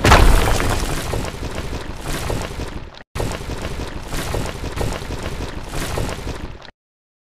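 Wall-smashing sound effect: a sudden loud crash, then a noisy rumble of crumbling debris with slow swells. It breaks off for an instant about three seconds in, starts again, and stops abruptly about a second before the end.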